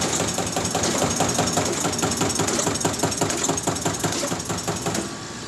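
Strippit CNC turret punch press punching sheet metal in a fast, even run of hammering strokes, several a second, that eases off near the end.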